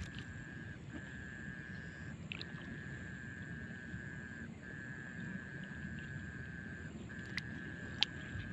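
A cast net being hauled out of the river by its rope, with faint sloshing of water, under a steady high-pitched drone that breaks off briefly every two seconds or so. Two sharp clicks come near the end.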